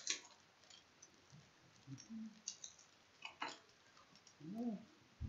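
Faint clicks and light rustles of trading cards being handled and flipped through. A short hummed note near the end.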